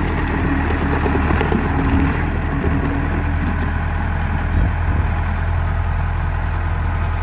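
Case 1840 skid steer's diesel engine running steadily at a low, even speed, with a steady tone coming and going over it in the first few seconds.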